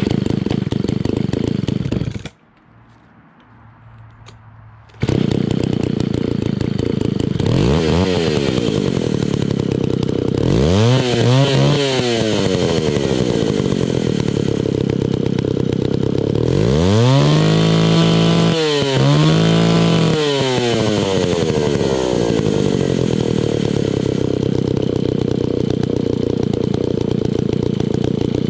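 An Alpina Pro 120 chainsaw's 120cc two-stroke engine catches, runs about two seconds and dies. About five seconds in it starts again and keeps running, revved up and back down several times, with a steady idle in between and at the end. It is a hard-starting old saw whose carburetor adjustment won't stay set, so it needs fiddling to idle.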